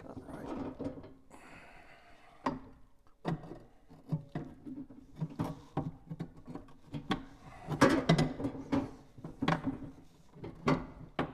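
Heavy Edison A-250 phonograph motor being worked into place inside its wooden cabinet: a run of knocks, clunks and scraping of metal against wood, loudest about eight seconds in.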